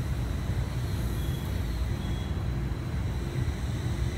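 Low steady rumble of JR East E721-series electric trains at a platform, one standing and one pulling slowly in, with faint steady tones over it.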